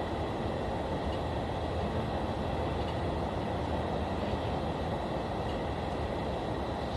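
Steady low rumbling background noise with faint high steady tones and no distinct events.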